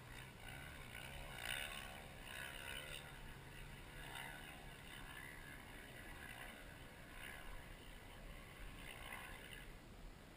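Faint dirt bike engines: a low steady idle, with a distant engine rising and falling in pitch as it revs up and down a few times.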